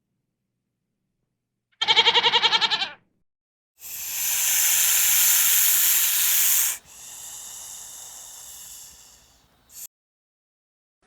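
A single short, quavering bleat, then a loud hiss lasting about three seconds that drops to a quieter hiss and fades out, with a brief burst of noise near the end.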